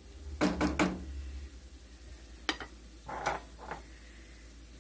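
Metal cookware and a utensil clinking and clattering: two quick clatters about half a second in, a single sharp clink about halfway through, then a few softer scrapes.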